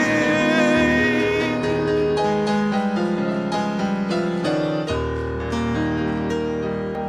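Gospel piano accompaniment. A man's held sung note with vibrato fades out about a second and a half in, and the piano carries on alone with a run of chords and single notes.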